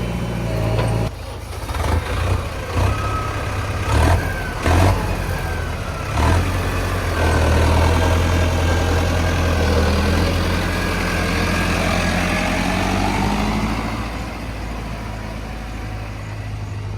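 Diesel engine of a JCB 3DX backhoe loader revving in several short surges, then held at high revs under load for several seconds while the machine digs and loads, easing off near the end.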